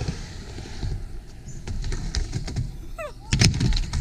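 Skateboard wheels rumbling as the board rolls down and around a wooden berm ramp. Near the end a run of loud clattering knocks as the rider bails and the loose board tips over on the ramp.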